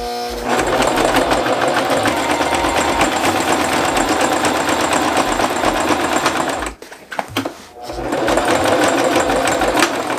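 Electric domestic sewing machine running fast, stitching through thick layers of sailcloth bag and webbing strap, straining against the bulk. It stops for about a second midway, then starts stitching again.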